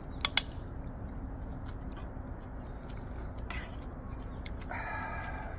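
Eating clatter: chopsticks clicking against melamine bowls and a frying pan of ramen, with two sharp clicks just after the start, and a short squeaky sound near the end.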